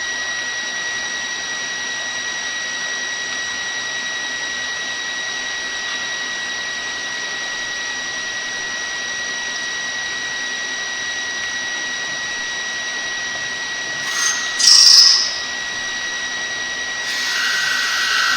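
A machine running steadily: a high thin whine over an even hiss. About fourteen seconds in come two short, louder hissing bursts, and near the end the sound shifts, with a second, lower whine joining in.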